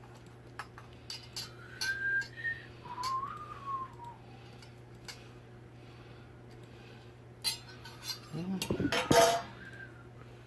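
Metal ceiling fan parts clinking and knocking as the canopy, downrod and motor housing are fitted together, with a louder clatter about nine seconds in. Two short whistle-like tones sound about two and three seconds in, over a steady low hum.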